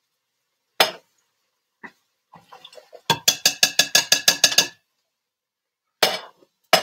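Metal kitchenware clinking and knocking as drained beans are emptied into the chili pots. There are single clanks, a fast run of about six ringing raps a second in the middle, and two more clanks near the end.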